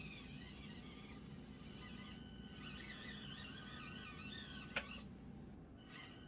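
Axial SCX24 mini RC crawler's small electric motor and gears whining faintly, the pitch wavering up and down with the throttle as it crawls. One sharp click about five seconds in.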